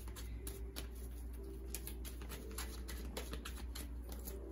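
Tarot cards being shuffled and handled by hand: a run of light, irregular card clicks and flicks, with one sharper snap near the end.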